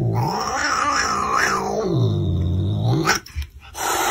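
Domestic cat growling: two long, low, drawn-out growls that sink in pitch and rise again, followed near the end by a short hiss.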